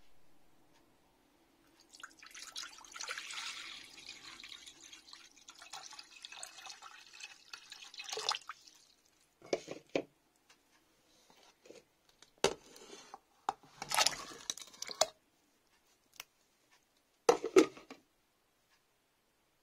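Tap water pouring steadily into a stainless steel pan for several seconds, then a series of splashes and knocks as raw potato cubes are dropped into the water, the loudest near the end.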